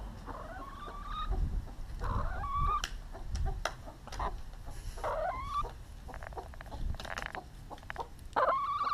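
Silkie chicken clucking, with several short rising calls, the loudest near the end, and a few sharp taps in between.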